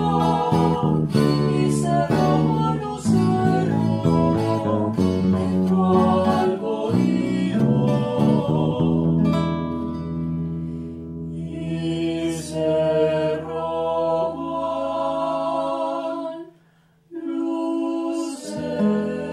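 Colombian Andean music: a woman singing over acoustic guitars and electric bass. The busy plucked accompaniment gives way to longer held notes about halfway through, breaks off for a moment near the end, then resumes.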